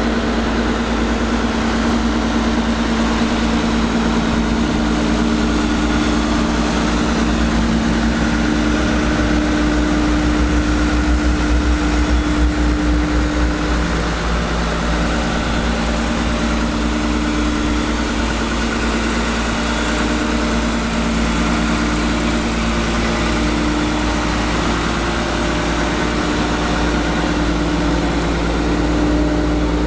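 Caterpillar 320 hydraulic excavator's diesel engine idling steadily.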